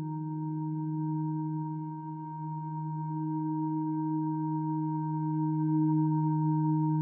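Ambient drone music: a few steady, sustained pure-sounding tones held together with no beat or melody, dipping slightly about two seconds in and then swelling again.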